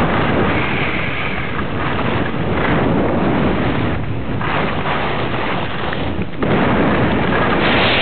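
Wind buffeting the microphone of a camera carried by a downhill skier, with skis hissing and scraping over the snow. A loud rush that swells in places, strongest near the end.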